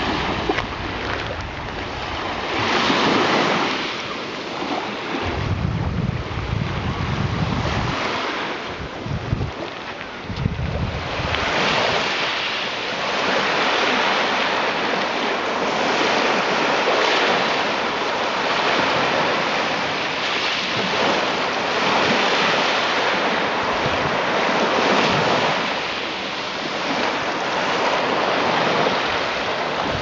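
Small sea waves breaking and washing up over a wet sand-and-pebble shore, swelling and ebbing every few seconds. Wind buffets the microphone with low rumbles several seconds in.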